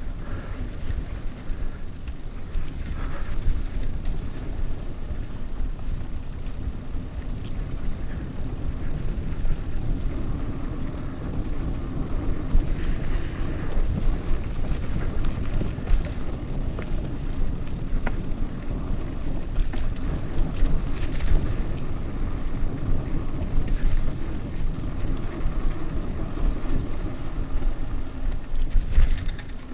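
Mountain bike descending a dirt trail: a steady low rumble of knobby tyres rolling over the ground and wind buffeting the camera's microphone, with scattered clicks and rattles from the bike over bumps.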